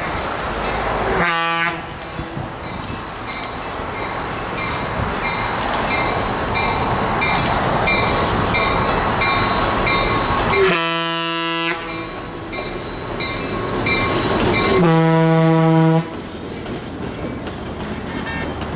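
Diesel locomotive approaching and passing with its engine and wheels rumbling on the rails, sounding its multi-note air horn three times: a short blast about a second in, then two blasts of about a second each, one just past the middle and one about three-quarters through. A faint regular clinking repeats about every two-thirds of a second under the rumble.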